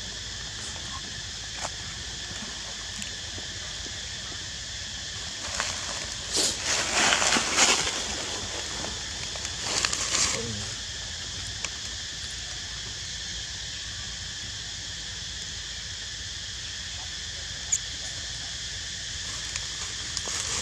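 Outdoor ambience with a steady high insect drone. Rustling and scuffling comes about six seconds in and again around ten seconds.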